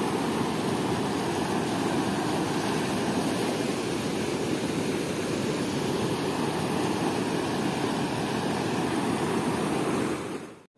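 Steady rush of river water churning through and below a weir's open gates, fading out near the end.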